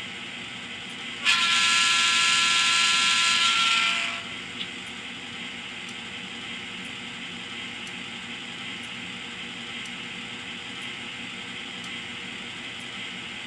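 Digital diesel sound of an N scale EMD MP15 switcher from a LokSound decoder's small cube speaker: the engine idles steadily, and about a second in the horn sounds one long blast of nearly three seconds before the idle carries on alone.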